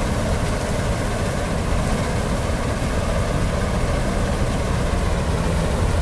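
Self-propelled combine harvester running steadily while cutting standing mustard: a continuous heavy engine drone with the machinery working, no change in pace.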